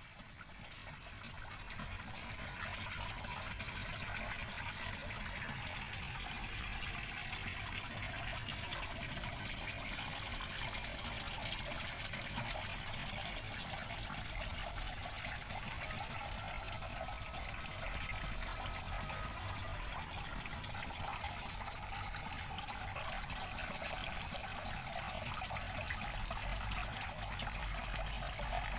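Water running and trickling steadily. It fades in over the first couple of seconds, then holds at an even level.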